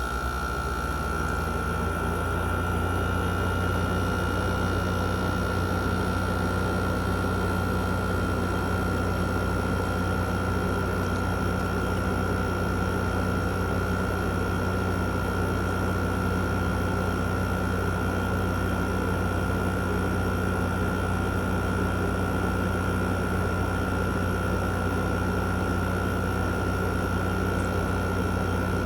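2016 Frigidaire 5,000 BTU window air conditioner running: a steady fan drone with a low hum and a thin, constant high whine, growing louder over the first few seconds and then holding even.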